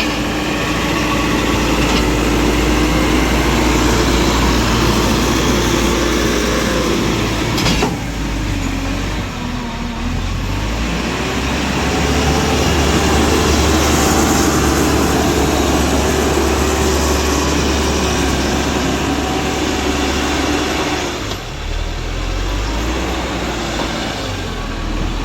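Tractor-backhoe engine running under working load, easing off briefly twice and picking up again.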